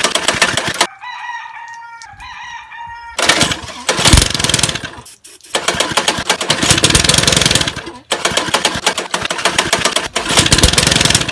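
Small 5.5 hp lawn mower engine running in rough bursts, cutting out about a second in, refiring after about three seconds and dipping twice more; the engine has water in its oil and a deeply scored cylinder. A rooster crows while it is stopped.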